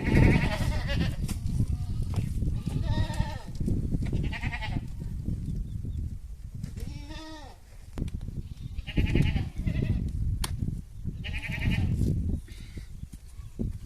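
Goats bleating, about seven calls one after another, over a steady low rumble.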